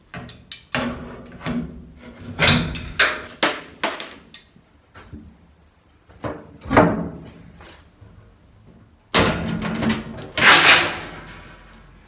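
Irregular metallic clicks and clanks of slip-joint pliers and metal latch parts as a pin is squeezed into a cabinet-door latch handle on a sheet-metal box-truck bin door. The louder clanks come about two and a half seconds in, near seven seconds, and from about nine seconds on.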